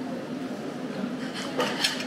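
Steady restaurant room noise with a low hum, and a few short clicks near the end.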